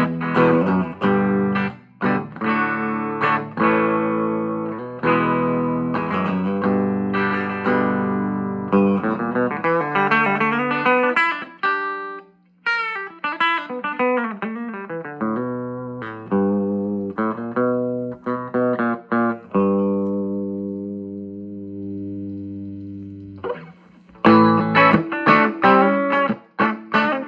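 Capozzoli Kuiper electric guitar with vintage DeArmond goldfoil pickups, played through a 5-watt tube amplifier taken from a film projector into a 10-inch Eminence Cannabis Rex speaker. It plays strummed chords, a quick run of single notes in the middle, and near the end a chord left ringing for a few seconds before the strumming picks up again.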